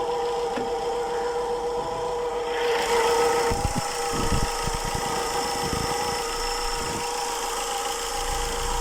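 Chevrolet Enjoy diesel engine idling with a steady hum from the accessory belt drive, made up of several constant tones. It is the sign of a bad pulley bearing, which the mechanic traces to the belt tensioner.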